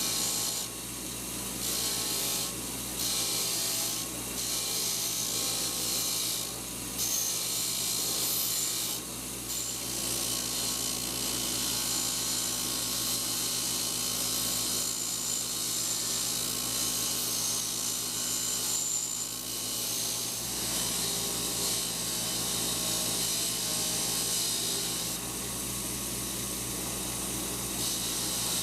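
Wire wheel running steadily, its bristles scratching rust and grime off small steel ratchet parts; the scratching drops away briefly several times as a part is lifted off and pressed back on.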